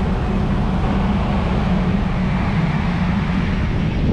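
Union Pacific streamlined passenger cars rolling past on the rails: a steady, low rumble of wheels on track.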